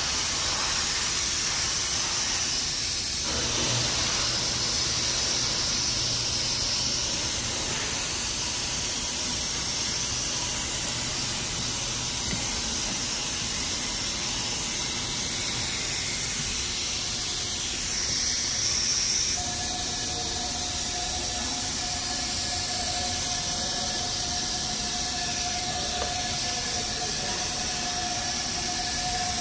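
Steady hissing noise, with a low hum for several seconds early on and two steady tones joining about two-thirds of the way through.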